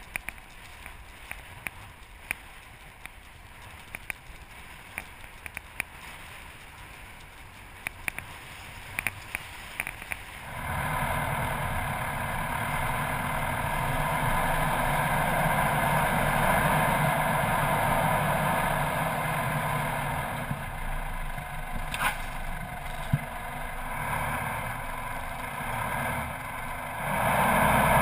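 Four-wheel-drive vehicle driving on a sandy desert track. For the first third it is quiet, with scattered light clicks. It then turns abruptly into a louder, steady mix of engine running, tyres and wind, and gets louder again near the end.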